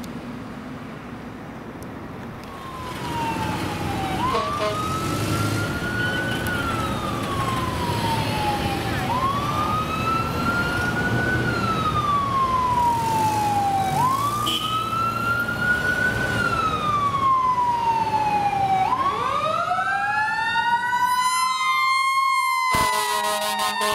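Fire engine responding with an electronic wail siren cycling slowly, rising and then falling about every five seconds, over traffic noise. Near the end a second siren winds up over it and an air horn blasts.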